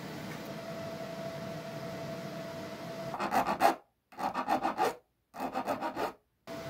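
A TIG welding arc runs with a steady hiss and a thin steady tone. About three seconds in, it gives way to a hand file rasping on a small metal part in quick back-and-forth strokes, in three bursts broken by short dead silences.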